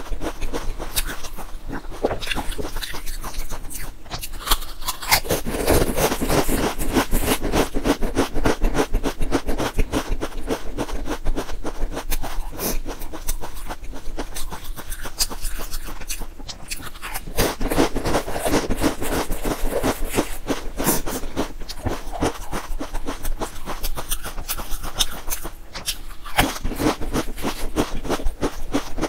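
Stacked potato chips being bitten and chewed: a dense run of sharp, crisp crunching crackles, heavier in a few stretches.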